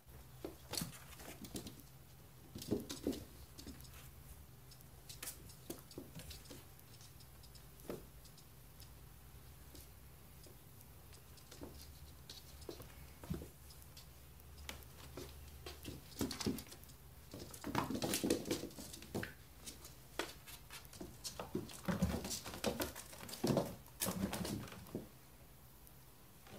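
Siberian kittens about forty days old playing and wrestling: light pattering and scuffling of small paws, with scattered taps and rustles, busier in the second half.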